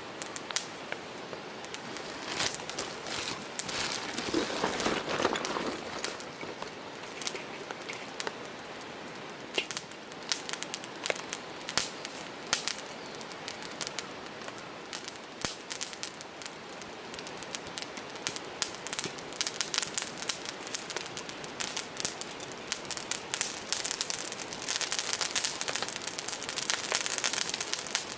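Lump charcoal burning in a metal fire bowl, crackling with many small sharp pops and snaps over a steady hiss, with a brief louder rush about five seconds in; the pops grow denser and louder over the last few seconds.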